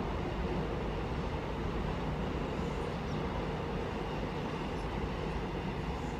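Double-stack container freight wagons rolling past on the rails: a steady, even noise of wheels running on track.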